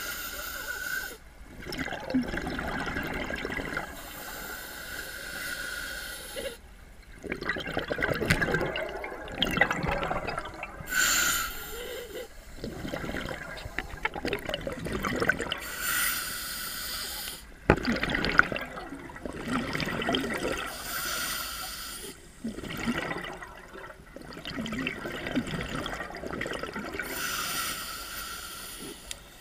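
Scuba diver breathing through a regulator underwater, a breath about every five seconds. Each inhale is a short hiss with a steady tone through it, and each exhale is a longer gush of bubbling.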